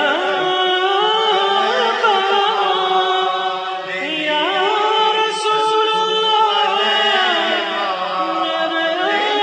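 A male voice singing a naat (Islamic devotional song) in long ornamented lines that glide up and down in pitch, without a break.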